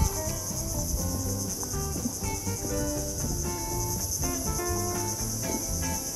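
Background music of short plucked melodic notes over a steady, high-pitched chorus of insects.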